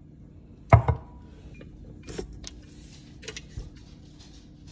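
One sharp knock about a second in, then a few light clicks and taps, as a KitchenAid tilt-head stand mixer and its steel bowl are handled and the mixer head is lowered over the bowl. The mixer's motor is not yet running.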